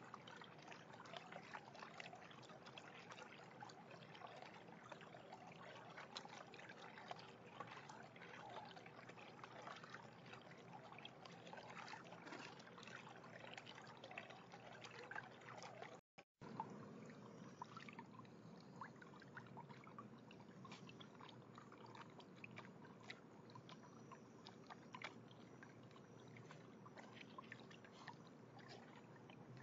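Faint, steady trickle of water from a small backyard fountain in a half-barrel, with scattered small ticks.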